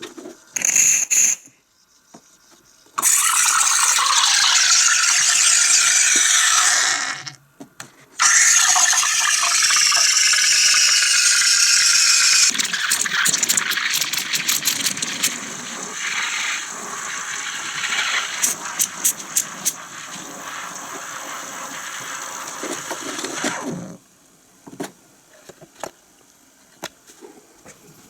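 Espresso machine steam wand hissing: two loud bursts of steam a few seconds in, then a quieter hiss with crackling clicks that cuts off suddenly near the end.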